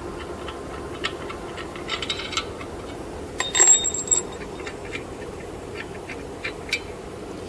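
Steel guide pins pulled from a clutch cover's bolt holes and clinking against each other in the hand: scattered light metal clicks, with one bright ringing clink about three and a half seconds in. A steady low hum runs underneath.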